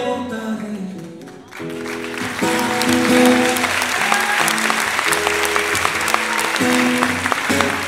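Steel-string acoustic guitar strumming chords, with the last sung note fading about half a second in. From about two seconds in, audience applause rises and continues over the guitar.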